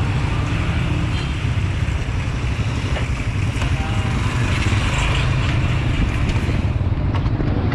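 Motorcycle and motorized tricycle engines running close by in street traffic, with a heavy low rumble; the higher hiss drops away near the end.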